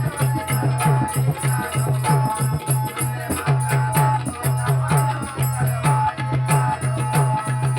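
Instrumental interlude of a Marathi bhajan: fast, steady hand-drum beat with jingling percussion and a melodic instrument line, with no singing.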